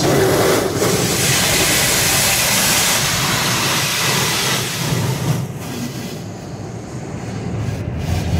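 Automatic car wash high-pressure rinse jets spraying against the car, heard from inside the cabin: a loud, steady hiss over a low rumble. It eases off about five seconds in and builds again near the end.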